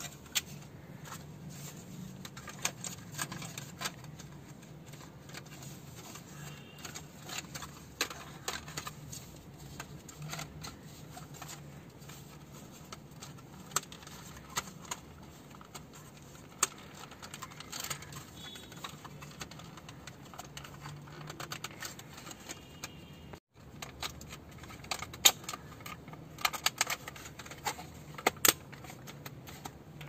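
Plastic dash fascia frame and mounting brackets being handled and fitted together: irregular clicks, taps and light rattles, the sharpest about 25 seconds in.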